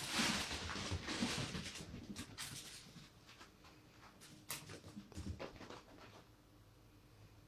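A chihuahua and a cat scrambling through a plush fabric cat tunnel: rustling fabric and scurrying paws for the first couple of seconds, fading out. A few scattered sharp knocks and scuffs follow later.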